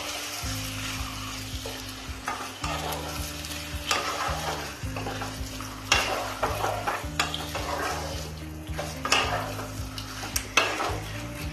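A wooden spatula stirring and turning Bombay duck fish pieces through a sizzling masala in a non-stick kadai, with the food frying in oil and occasional sharp scrapes and knocks of the spatula against the pan. The fish is being mixed into the masala.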